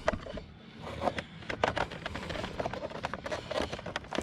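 Small metal wrench handle clicking and scraping against the plastic locking tabs of a motorcycle accessory power socket while pressing them in to free it: a run of sharp, irregular clicks and scrapes.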